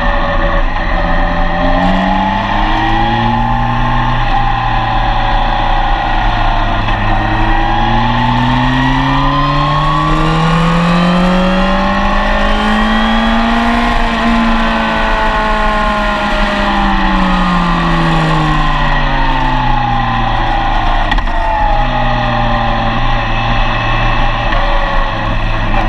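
Yamaha FJR1300's inline-four engine running hard under riding load. Its revs rise and fall briefly, then climb slowly over about seven seconds to a peak around the middle, then ease back down just as gradually, with shorter rises and falls near the end.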